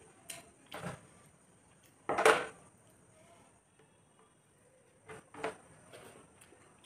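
A metal serving utensil clinks and scrapes on a steel meal tray as food is moved onto it, the loudest clatter about two seconds in. Short eating sounds from a meal taken by hand come in between.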